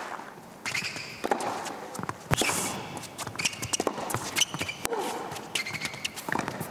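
Tennis ball bounced on an indoor hard court before a serve: a series of sharp, irregularly spaced knocks.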